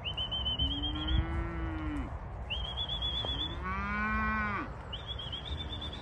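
Cattle mooing: two long low moos, one after the other, each rising and then falling in pitch. A high, wavering whistle-like tone sounds three times alongside them.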